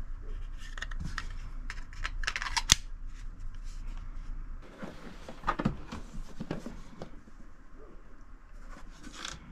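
A compact semi-automatic pistol being handled: small clicks and rattles of its slide and controls, with one sharp metallic click a little before the three-second mark as the loudest sound. More handling clicks follow, and near the end a plastic hard case is handled.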